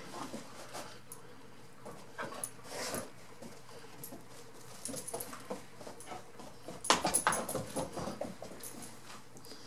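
A dog vocalizing in play with another dog: short scattered sounds, the loudest a quick run of them about seven seconds in.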